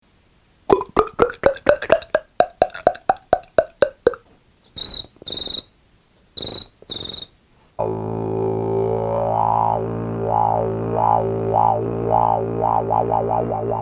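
Voice-changer app sound effects: a quick run of short pitched pulses, then four short high beeps, then a steady buzzing drone with a repeating wah-like sweep that gets faster near the end.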